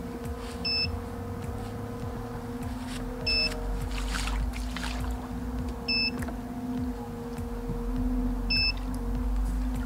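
Electric motors of a radio-controlled carp bait boat running with a steady hum. A short, high double-pitched beep sounds about every two and a half seconds.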